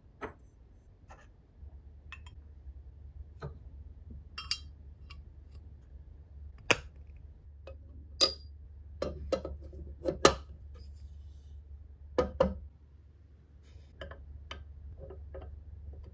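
Aluminium parts of a full-metal turbofan engine model clicking and clinking as they are fitted together by hand: irregular light taps and clicks, a few sharper ones, the loudest about ten seconds in.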